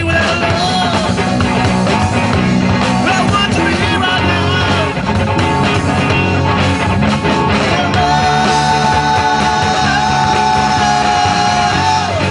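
Live rock trio of guitar, bass guitar and drums playing an instrumental jam. The guitar plays a lead line with bent, wavering notes, then holds one long sustained note from about two-thirds of the way through until near the end, over a steady bass line and drum beat.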